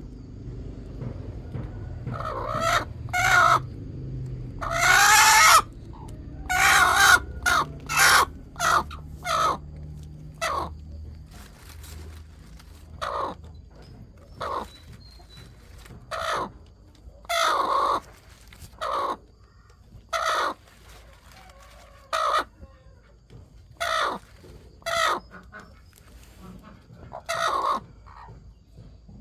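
Chickens clucking and calling, a string of separate short calls every second or two, the loudest and longest in the first several seconds.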